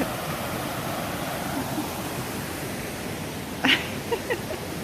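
Steady rush of flowing creek water at a waterfall, with a brief faint sound about three and a half seconds in.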